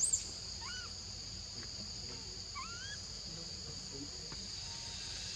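Insects droning steadily at a high pitch. Two short rising chirps come through about a second in and again near three seconds, and a brief sharp sound is heard right at the start.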